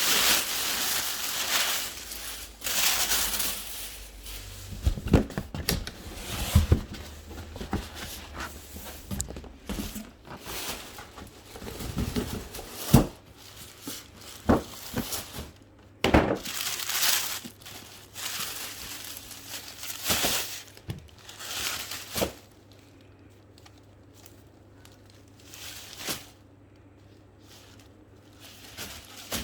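Packaging wrap crinkling and rustling as it is handled, in irregular bursts with a few sharp knocks; the bursts thin out in the last several seconds.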